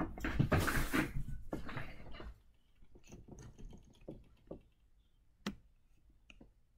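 Rustling and bumping movement noise close to the microphone for about two seconds, then quiet with a few faint, sharp clicks.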